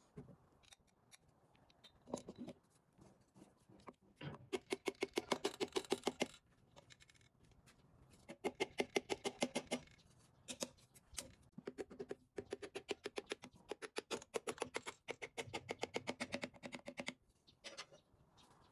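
Bursts of rapid, evenly spaced mechanical clicking, about ten clicks a second, each burst lasting two to five seconds, with a few scattered clicks between the bursts.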